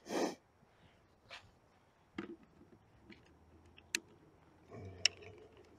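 Camera handling noise: a short rustle right at the start, then scattered faint clicks and taps, and another soft rustle near the end.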